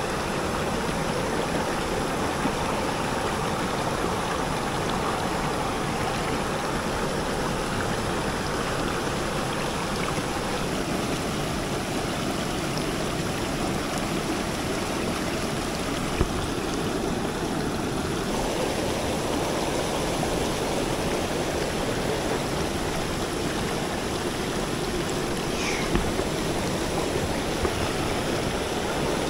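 Mountain headwater stream running steadily over rocks, its water still high after heavy rain.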